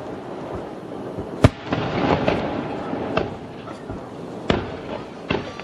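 Fireworks going off: a sharp bang about a second and a half in, another strong one past the middle, and smaller scattered bangs over a continuous crackle and rumble.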